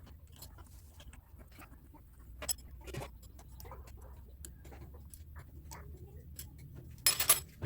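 Scattered light clicks and taps, as of small parts and hand tools being handled, with a brief louder clatter about seven seconds in.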